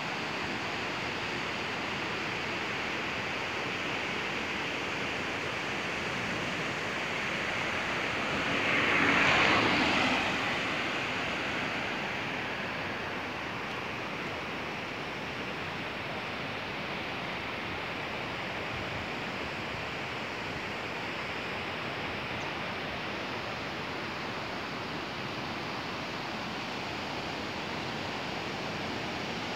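Steady rushing of a rocky mountain river's rapids. A louder whoosh swells and fades about nine seconds in.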